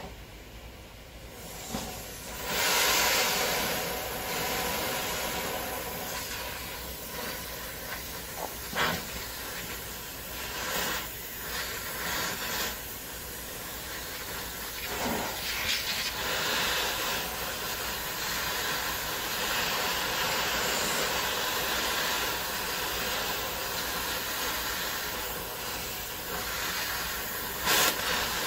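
Gas torch flame hissing steadily as it heats a rust-seized torsion bar key; the hiss grows louder about two seconds in. A few short sharp cracks break through, the loudest near the end.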